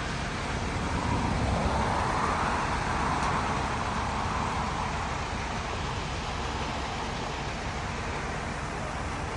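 Steady engine rumble with a rushing noise from machinery at a concrete pour. The rushing grows louder for a few seconds from about a second and a half in, then settles back.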